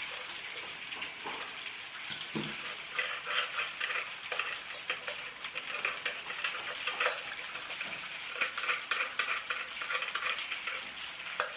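Small clicks and rattles of wires and a plastic sensor module being handled inside a lamp base, over a steady hiss of rain.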